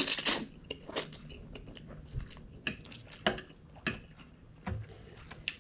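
A loud slurp as a forkful of spicy instant noodles is sucked in, then chewing with a short sharp click about every second.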